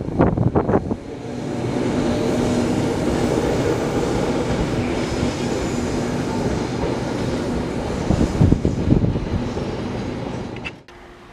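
Electric multiple unit moving off along the track: its wheels clack over rail joints in the first second, then a steady rumbling running noise with a low hum, with a few more clacks near the end. The sound cuts off suddenly just before the end.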